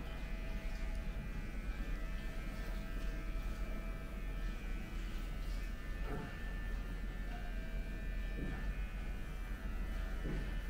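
Electric hair clippers buzzing steadily during a neck shave.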